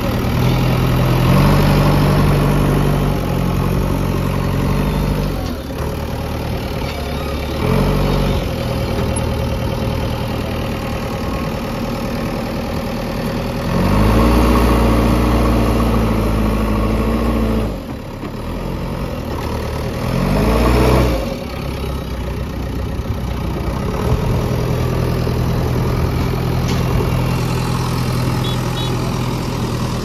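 JCB 3DX backhoe loader's diesel engine running while the loader works. It revs up four times, briefly near 8 s and held for a few seconds around the middle, and drops back to a lower steady run in between.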